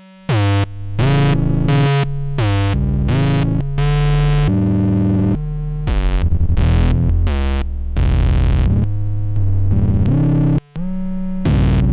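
Eurorack modular synthesizer: a Doepfer VCO stepping through notes set by random voltages, processed by the Noise of Antimatter Subshaper into buzzy, distorted tones with added subharmonics. The notes follow each other about every half second, each with a bright attack, and cut out briefly just before the end.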